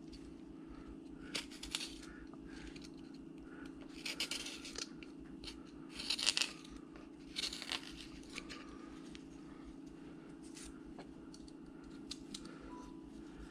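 Carving knife cutting into wood in short slicing strokes, a handful of cuts a second or two apart, over a steady low hum.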